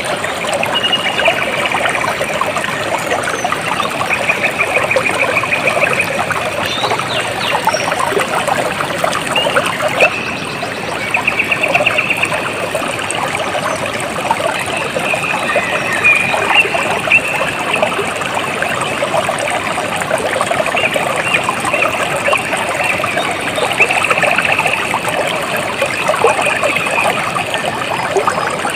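Running water trickling steadily, with a high, rapid trill recurring every few seconds over it.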